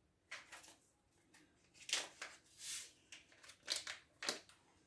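A small sachet of baking powder being opened and handled: several short papery rustles and crackles.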